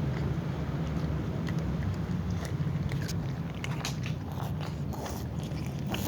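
Cats chewing and crunching food: scattered short clicks of bites that come thicker in the second half, over a steady low hum.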